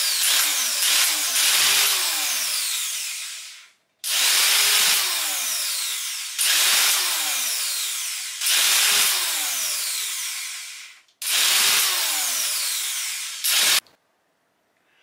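Electric tufting gun running as it punches yarn through hessian backing. It goes in several runs of two to four seconds each, each starting and stopping abruptly, and its motor note swells and drops within each run.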